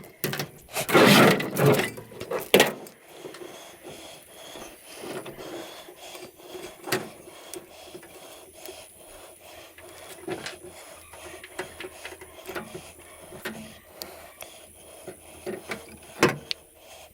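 Scrap being handled during sorting: a loud clattering rattle from about one to two and a half seconds in, then scattered light clicks, taps and scraping, with a sharper knock near the end.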